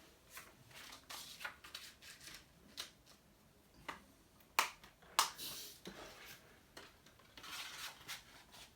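Hands handling a plastic Blu-ray case and its discs: scattered clicks and rustling, with two sharp clicks, the loudest, a little past halfway.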